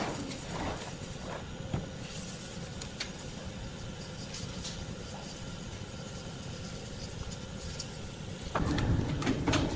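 An engine running steadily at idle, with a few scattered clicks and knocks; it gets louder near the end.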